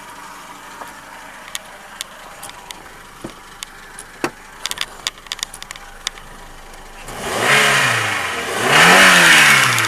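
1999 Renault Megane 1.4-litre four-cylinder petrol engine idling with scattered sharp ticks, then revved twice near the end, the pitch rising and falling each time. The owner describes the engine's noises as a whine, a hum and a clatter when revved, and does not know the cause.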